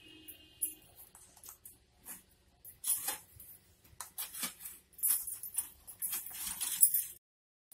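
Plastic spoon scooping and scraping coarse rock salt in a plastic jar, the crystals rattling and tipping into a steel bowl, in a string of sharp clicks and gritty rustles that stops abruptly near the end.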